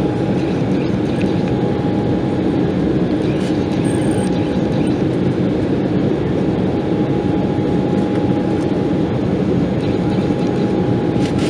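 Steady cabin noise of an Embraer 190 airliner in its climb, heard at a window seat: the rumble of its two GE CF34-10E turbofans and rushing air, with a faint steady tone above it.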